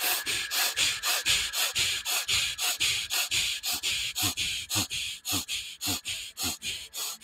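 Fire breath: a person breathing rapidly and forcefully in and out through the nose, in quick, even puffs at about four a second.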